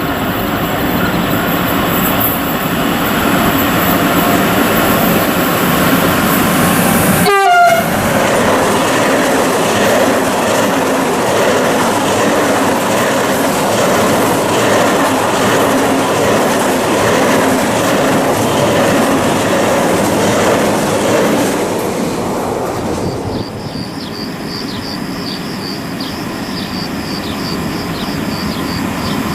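Renfe freight train running past, its horn sounding and its wagons clattering over the rails. The sound breaks off suddenly twice, and in the last few seconds there is a fast run of high-pitched wheel clicks.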